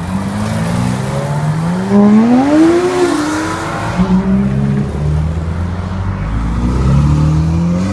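High-performance car engines revving as cars pull away: one engine's pitch climbs sharply for about a second, two seconds in, then drops back. A deep, steady exhaust rumble follows, and another rev rises near the end.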